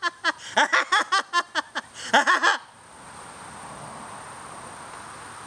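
A man's loud, maniacal laugh: rapid ha-ha bursts that stop about two and a half seconds in. After that there is only a faint steady hiss with a thin high tone.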